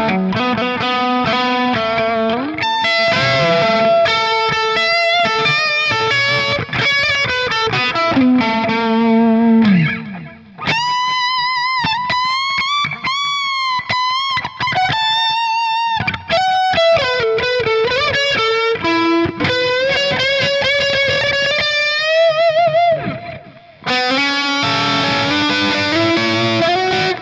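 Knaggs Kenai electric guitar with Seymour Duncan Seth Lover humbuckers playing a lead with overdrive. Quick note runs give way, about ten seconds in, to high sustained notes bent and shaken with wide vibrato, and then to more runs.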